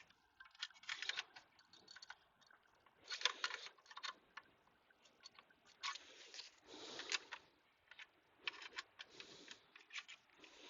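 Faint light clicking and rattling of small hard parts being handled, in short clusters every two to three seconds.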